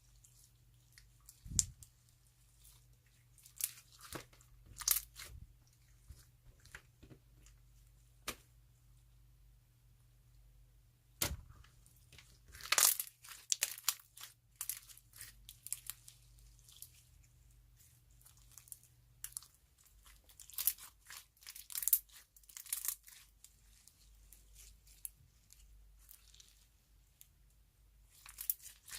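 Handmade slime being squeezed and stretched by hand, giving irregular sticky crackles and popping clicks that come in clusters.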